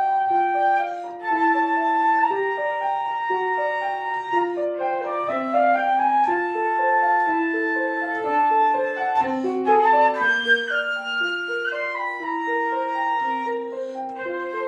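A flute playing a flowing melody of held and stepping notes over piano accompaniment.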